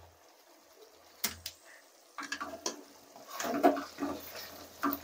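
Wooden spatula stirring thick mutton curry in an aluminium kadai held with pan tongs. It makes wet squelching strokes with scraping and clattering against the metal, starting about two seconds in after a quiet start with one click.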